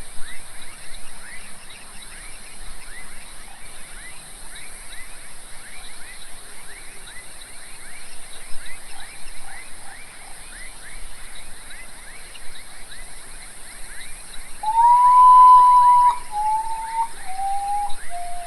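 Common potoo (urutau, mãe-da-lua) singing its mournful song late on: one long whistle, then three shorter notes each a step lower in pitch. Under it runs a steady night background of rapid chirping and a high, even hiss.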